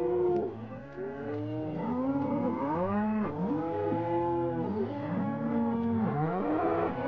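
A herd of bovines lowing: many drawn-out moos overlapping and following one another without a break, each rising and falling in pitch.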